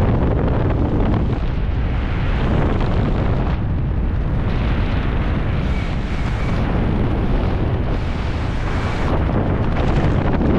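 Steady, loud wind noise on a helmet camera's microphone, heaviest in the low end, from the airflow of flying under an open ram-air parachute canopy.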